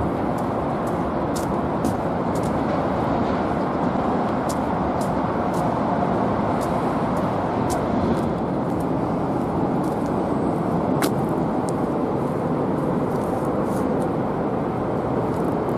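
Steady road-traffic rumble from the cable-stayed expressway bridge overhead, with scattered faint clicks.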